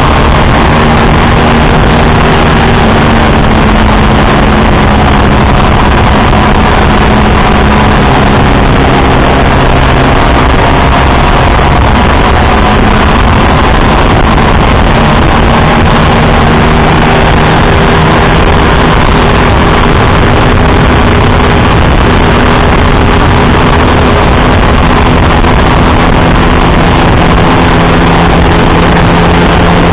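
Motorcycle riding at highway speed: a loud, steady rush of wind on the microphone over the engine's steady hum, whose pitch drifts slightly with speed.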